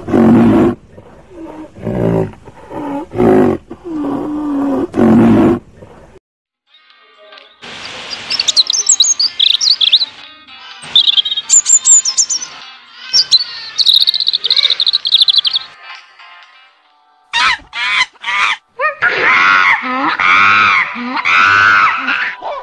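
A run of animal calls in turn: a white rhinoceros giving a series of short, low calls, then, after a short pause, a European robin singing a high, twittering song, and from about seventeen seconds in a macaque giving repeated high, wavering calls.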